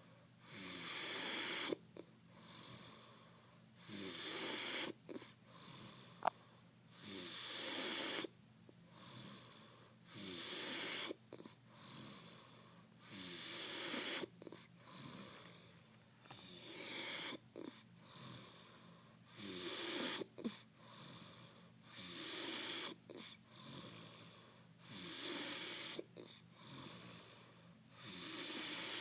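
A man snoring in his sleep: a loud, wheezing breath about every three seconds, with a lower rattle between breaths.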